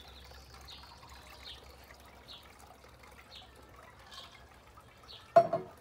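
Faint outdoor ambience: a soft trickle of water with short high chirps about once a second. A brief loud sound comes near the end.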